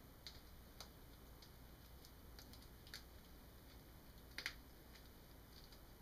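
Faint, scattered small clicks and crackles from fingers pushing and peeling a cut shape of soft, thick self-adhesive gel rhinestone sheet to pop it free of its backing, with a louder double click about four and a half seconds in.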